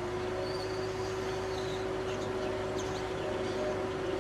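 A steady droning hum that rises in pitch as it starts and falls away as it ends, with faint squeaks of a marker being drawn across poster board.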